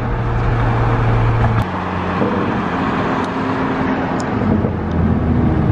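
Cars driving along a road, heard from inside a moving car: steady road and wind noise under a low engine note, which changes pitch about a second and a half in.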